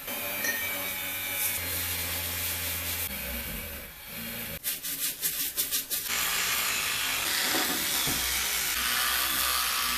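Rotary tool spinning a brass wire brush against the vise, scrubbing off paint and grime. About halfway through the sound breaks into a short run of quick pulses, then goes back to a steady scrubbing run.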